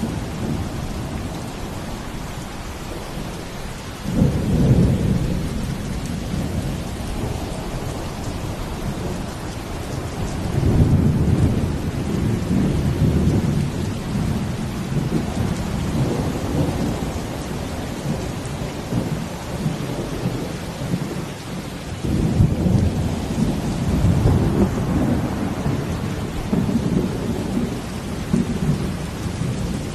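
Steady rain with deep rolling rumbles swelling up about 4 seconds in, again around 10 seconds and again around 22 seconds, each lasting several seconds. The rumbles are either ocean waves or thunder.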